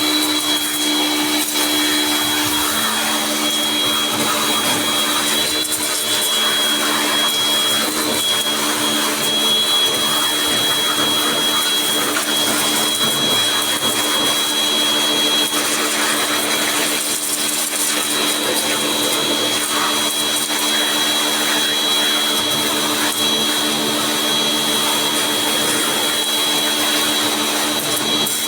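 A small electric motor running steadily, with a high whine over a lower hum and a rushing noise.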